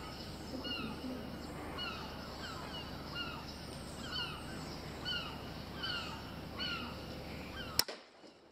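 A bird calling over and over in short, falling, high-pitched notes, about two a second, over a steady low hum. A single sharp click comes near the end.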